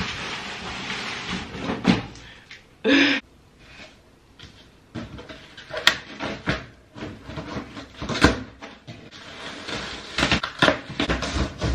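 Packaging being torn open by hand: cardboard ripping and rustling, then plastic stretch wrap crinkling as it is snipped with scissors and pulled off, with irregular clicks and snips. One brief loud noise about three seconds in.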